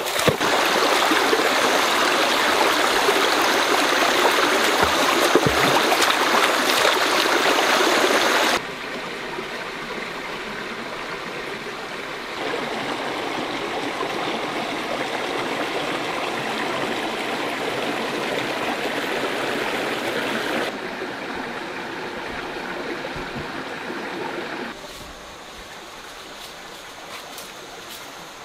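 Shallow stream running over rocks: a steady rush of water, loudest at first and dropping to a quieter flow after about eight and a half seconds, and quieter still near the end.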